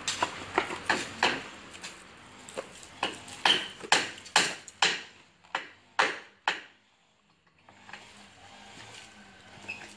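Hand tools clicking and knocking on steel reinforcing bar: a quick run of sharp clinks and taps that stops about six and a half seconds in, leaving a faint hum.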